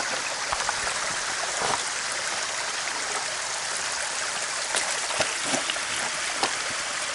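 A small mountain creek running steadily over rocks, with a few sharp clicks of boots stepping on loose stones.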